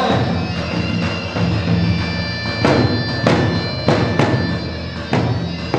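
Music with held, sustained tones and loud drum strikes at uneven intervals in the second half.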